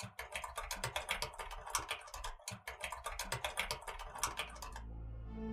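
Typing sound effect: a rapid run of keyboard-like key clicks that stops about four and a half seconds in.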